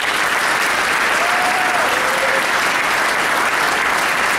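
Audience applauding, a dense, steady clatter of many hands clapping that starts suddenly just before and holds at full strength.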